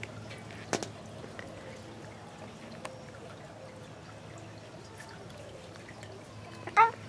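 Clear plastic treat-dispensing mouse toys knocked and nudged on a glass tabletop, with a sharp click about a second in, scattered light ticks, and dry treats rattling inside. Near the end comes a brief high chirping call, the loudest sound.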